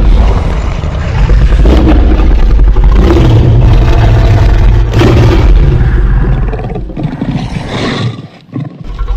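A loud, continuous roaring sound effect with a heavy low rumble, dropping away briefly near the end before starting again.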